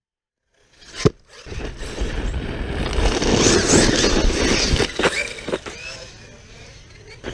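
Arrma Kraton 6S RC monster truck on gravel: a sharp landing impact about a second in, then tyres scrabbling and spraying gravel under its brushless motor, with a couple more knocks around five seconds in before it fades quieter.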